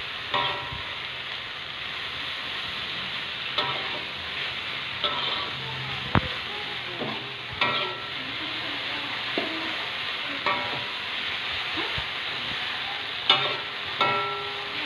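Paku pakis fern shoots sizzling as they stir-fry in a metal wok, with a metal spatula scraping and clinking against the pan every few seconds, each stroke ringing briefly.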